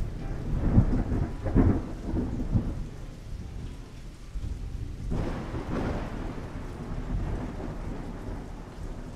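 Deep rumbling noise with crackles, swelling about a second in and again about five seconds in, over a steady low hiss.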